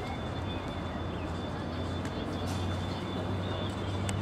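A steady low hum of a motor running, over faint outdoor background noise.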